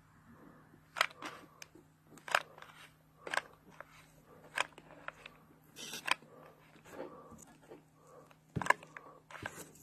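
Scattered sharp clicks and taps of plastic parts and a hot glue gun being handled while gluing, roughly once a second with the loudest near the end, over a faint steady hum.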